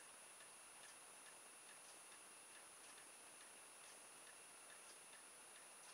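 Faint regular ticking, about two ticks a second, over near-silent room tone.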